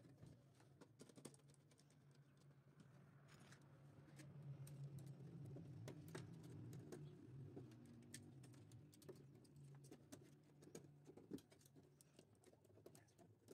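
Near silence with faint, scattered clicks and taps of wires and a screwdriver being handled at the terminals of DIN-rail circuit breakers and relays. A faint low hum sits underneath, a little louder in the middle.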